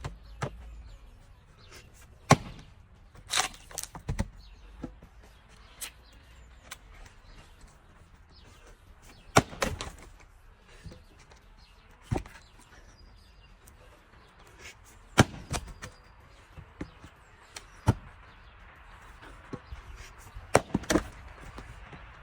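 An axe striking wood in single sharp chops a few seconds apart, with smaller knocks and rustles between.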